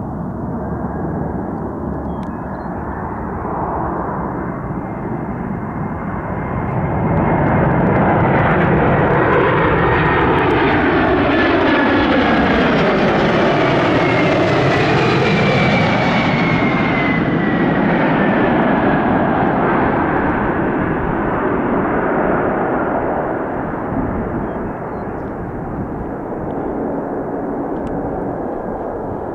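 Large aircraft flying past, its engine noise swelling to a peak mid-way and then fading, with a high whine that drops in pitch as it goes by.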